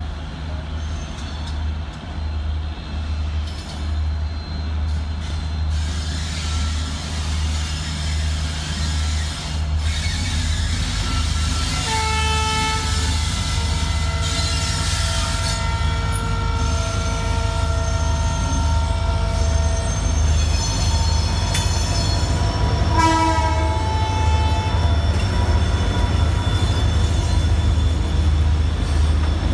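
WDP-4D diesel locomotive's EMD two-stroke engine running with a deep, steady rumble as it pulls the train out, growing louder as it comes up and passes. Its multi-tone air horn sounds a long blast about twelve seconds in and a short one about twenty-three seconds in.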